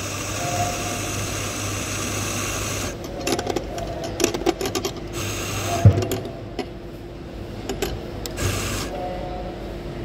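Electric espresso grinder motor running steadily as it grinds coffee into a portafilter, stopping about three seconds in. It is followed by clicks and knocks with one louder thump, and a brief half-second burst of grinding near the end that tops up the dose.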